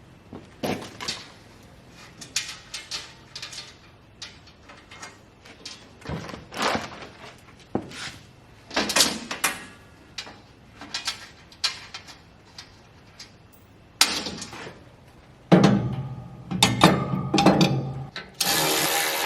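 Irregular knocks, clunks and short rustles of parts and tools being handled during assembly, with a cluster of heavier clunks and a louder scraping noise near the end.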